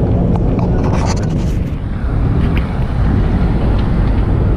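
Street traffic: a small shuttle bus drives past close by as it turns, its engine and tyres heard over a dense low rumble of wind buffeting the microphone.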